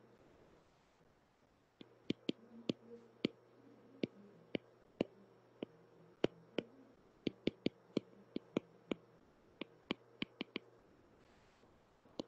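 Stylus tip tapping and clicking on an iPad's glass screen while handwriting and drawing: sharp, irregular ticks, a few per second, beginning about two seconds in.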